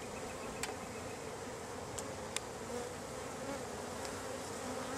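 Many honey bees buzzing in a steady hum, with a few faint clicks.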